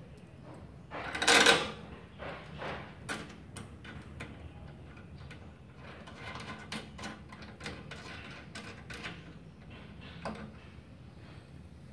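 Clicks and knocks of welding-cable plugs being fitted and twisted into the output sockets on a welding machine's front panel, with one louder clatter about a second in.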